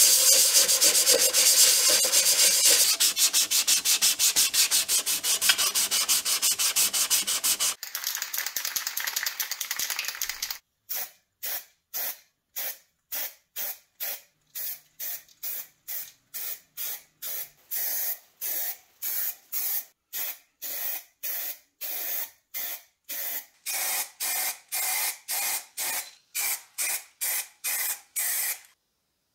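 Sandpaper rubbed by hand over filler on a gumball machine's metal housing for about eight seconds. From about ten seconds in, a long run of short hisses from an aerosol spray can, about two a second, laying primer on the parts, stopping just before the end.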